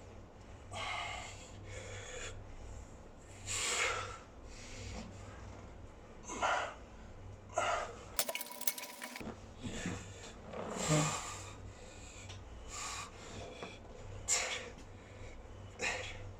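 A man breathing hard from exertion: forceful, irregular exhales and gasps, one every second or two, over a steady low hum.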